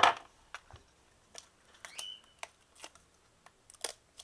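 Thin protective plastic film being peeled off the back of a smartphone: a loud crackle at the start, then scattered soft crinkles and clicks of the plastic and fingers handling the phone, with a short squeak about two seconds in.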